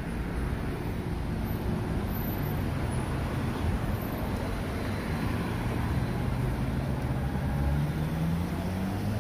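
Road traffic: cars driving past on a city street, with a steady hum of engines and tyres. Near the end one vehicle's engine rises in pitch as it speeds up.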